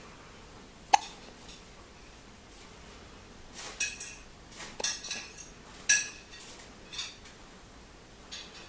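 Newborn baby hiccuping: short, sharp hics, one about a second in, then a run of several close together from about three and a half to seven seconds, and one more near the end.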